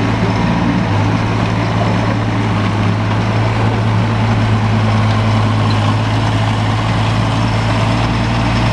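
Volvo EC15B mini excavator's diesel engine running at a steady speed while the machine turns round on the spot.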